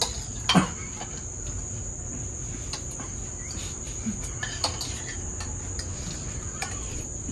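Crickets trilling steadily at a high pitch, with scattered light clicks of spoons against bowls.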